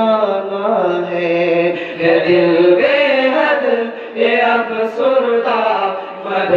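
A group of young men singing together in unison into microphones, a devotional chant with long held notes and melodic turns.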